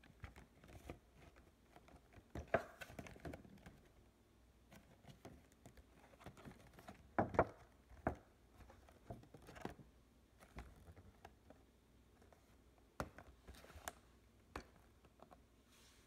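Faint handling of a cardboard toy box with a clear plastic window: irregular taps, rubs and crinkles of fingers on the box, with a few louder knocks and rustles about two and a half seconds in and again around seven seconds.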